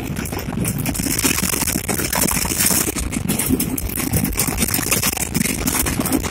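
Cabin noise of a moving vehicle: steady engine and road noise with frequent small rattles and knocks.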